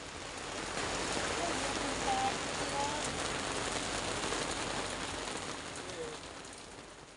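Steady rain falling, an even hiss that swells in over the first second and fades away near the end.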